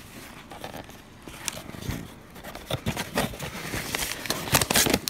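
Hands rummaging in a cardboard shipping box, crinkling and rustling the packing material with scattered sharp crackles and taps. The handling grows busier and loudest near the end.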